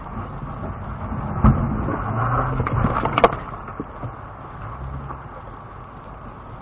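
Lexus GX470 crawling slowly over a rocky trail, heard from inside the cabin: a low engine hum under steady rumble, with two sharp knocks as it jolts on the rocks, one about a second and a half in and a louder one about three seconds in.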